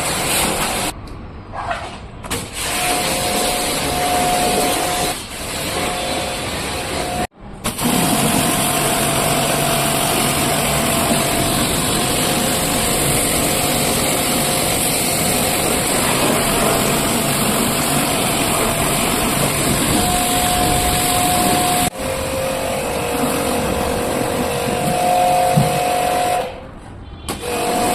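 Pressure washer spraying water in a loud, steady hiss, with its pump motor whining underneath; the sound cuts off abruptly a few times.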